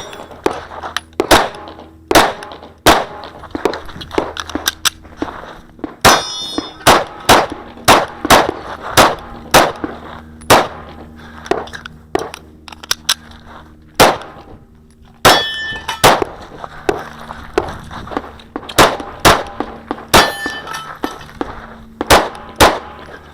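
Kahr CW9 9mm pistol firing a stage: many sharp shots, often in quick pairs, in strings broken by short pauses. A metallic ringing follows a shot about six seconds in, again mid-way and near the end.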